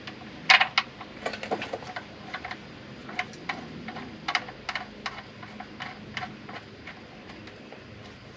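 Light, irregular metal clicks and ticks, about two a second, as the oil drain plug is threaded by hand back into an L5P Duramax's oil pan.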